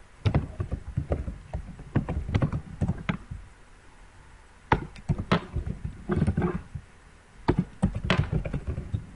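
Typing on a computer keyboard: irregular runs of short key clicks with brief pauses, including a longer pause about halfway through.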